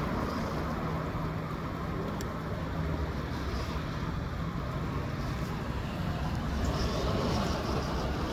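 Gusty wind buffeting the microphone with a deep, steady rumble, over the rush of wind through the trees; it swells slightly about seven seconds in.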